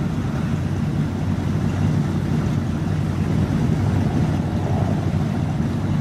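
Yellow C3 Corvette's V8 engine running steadily at low speed as the car creeps forward.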